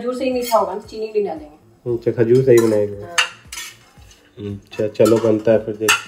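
A metal spatula stirring and scraping chopped cashews, almonds and walnuts as they roast in ghee in a stainless steel kadai. It makes repeated squeaky scrapes with a few sharp clinks of metal on metal.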